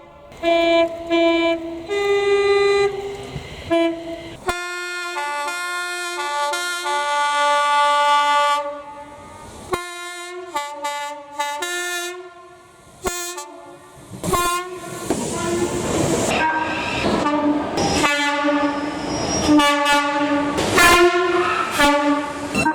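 Train horn sounding a long series of blasts at several pitches: short toots, then held notes that change pitch one after another. From about two-thirds in, a train's running noise rises under further horn blasts as it passes.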